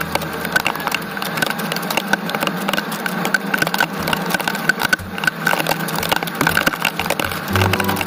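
Heavy storm rain striking a hard surface close by: a dense, irregular run of sharp ticks and taps over a steady hiss.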